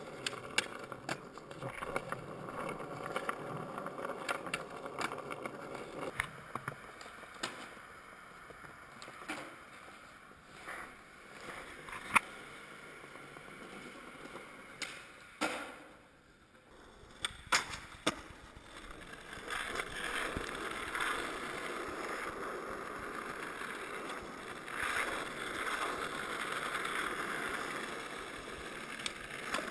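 Skateboard wheels rolling over concrete and smooth floors, a steady rolling noise broken by several sharp clacks of the board being popped and landed. The rolling drops out briefly near the middle.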